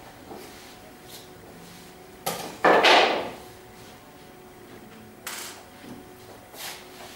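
A sharp knock about two seconds in, followed at once by a loud scraping clatter lasting about half a second; two lighter knocks near the end.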